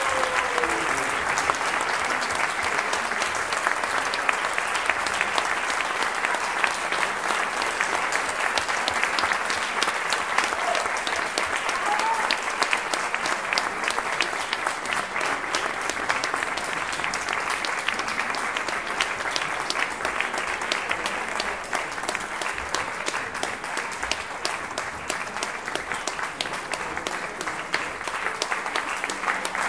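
Concert-hall audience applauding steadily, the clapping easing off a little in the last several seconds.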